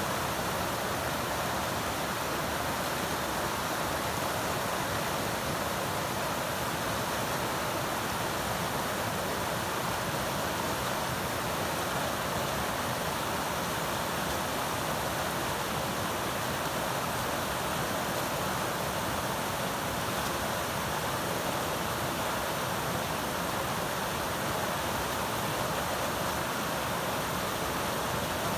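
River water rushing steadily over its bed: an even, unbroken noise.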